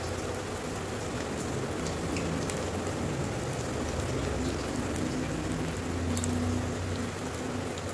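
Spinach and onion pakoras (besan fritters) deep-frying in hot oil in a steel kadhai on a low flame: a steady, even sizzle of bubbling oil with a few light crackles, and a low hum underneath.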